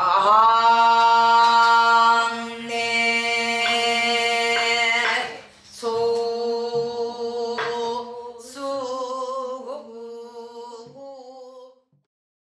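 A woman singing a pansori vocal exercise unaccompanied: one long held note, a brief breath, then a second long note that wavers with a vibrato near the end and stops shortly before the end.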